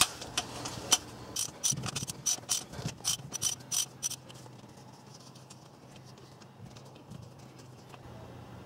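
Socket ratchet clicking in quick, uneven runs as a plug on a Suzuki Carry DA16T's manual transmission case is turned; the clicking stops about four seconds in, leaving only a faint low hum.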